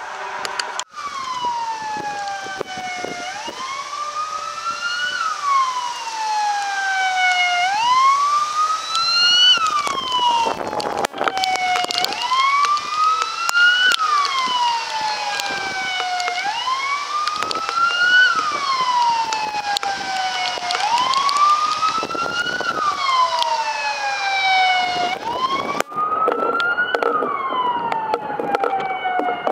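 Sirens of a column of fire service vehicles wailing: a slow rise and fall in pitch that repeats about every four and a half seconds, with other siren tones overlapping higher up.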